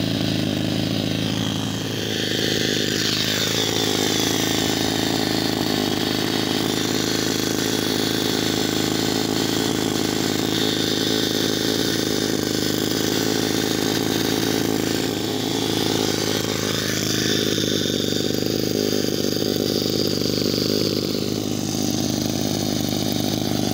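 O.S. FS-26S-CX single-cylinder four-stroke nitro glow model engine running steadily with its jet set rich. Its pitch drops a couple of seconds in, rises again about two-thirds of the way through, and dips once more near the end.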